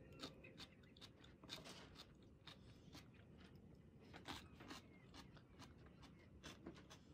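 Faint crunchy chewing, a person eating pieces of cucumber: soft, irregular crunches and clicks a few times a second.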